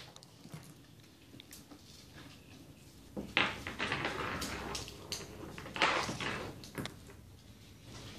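Knocks and clatter on a hardwood floor as a Yorkshire terrier puppy chases a marble: the marble rolling and skittering and the puppy's paws scrambling, loudest in two spells about three and six seconds in.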